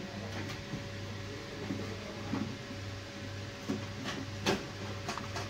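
Light taps and clicks of multimeter probes and the power supply board being handled, over a low steady hum and a faint steady tone that stops near the end.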